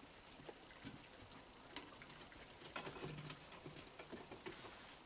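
Raccoons eating food scattered on a wooden deck: faint, scattered small clicks and ticks of chewing and of pieces being picked up, over a steady low hiss.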